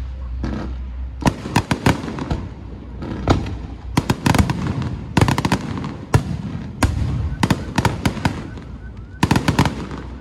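Firecrackers and fireworks going off: irregular sharp bangs, some single and some in quick clusters, over a low continuous rumble.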